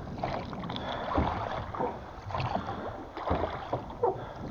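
Small boat being rowed with oars: uneven splashing of the blades in the water, with short irregular knocks.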